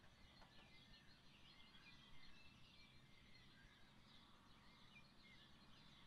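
Faint chorus of small songbirds chirping and trilling in a forest, over a steady low background rumble.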